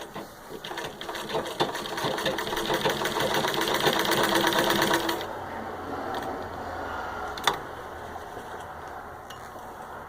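1924 Singer 15-30 treadle sewing machine stitching through six layers of denim: a fast, even clatter of stitches that grows louder, then stops about five seconds in. After it comes a low steady rumble, which the owner takes for passing motorcycles and cars, and one sharp click a couple of seconds later.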